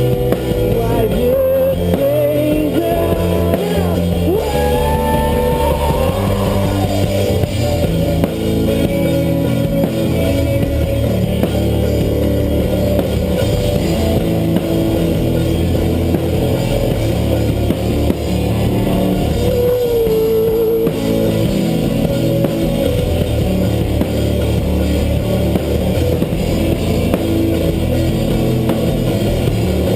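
Rock band playing live, with guitars over a drum kit, loud and continuous. A gliding guitar or vocal line bends upward in the first few seconds and again about twenty seconds in.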